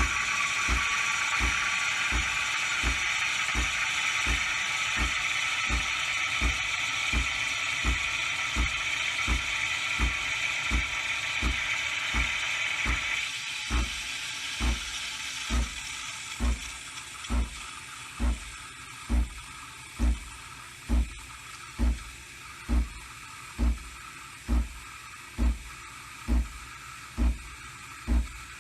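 Breville Nespresso Creatista Plus steaming and frothing milk: a steady steam hiss that dies away about halfway through, over a low pulsing thump about once a second from the machine that carries on after the hiss ends.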